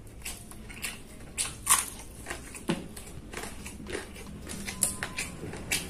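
Close-miked chewing and crunching of food, a mukbang eater's irregular crunches and mouth clicks, the sharpest about a second and a half in.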